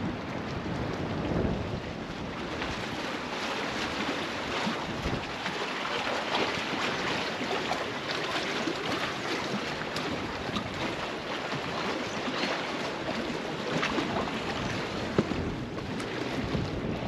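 Wind buffeting the microphone over choppy reservoir water lapping against a stone dam wall, a steady rushing noise with heavier low rumble in the first couple of seconds.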